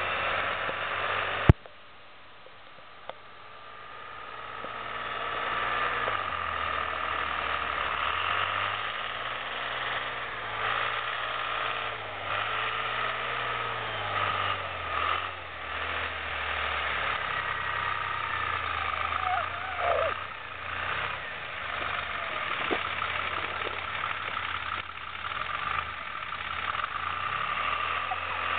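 Tucker Sno-Cat tracked snow vehicle's engine running as it drives over snow, its pitch rising and falling repeatedly as the throttle changes. A sharp click sounds about a second and a half in.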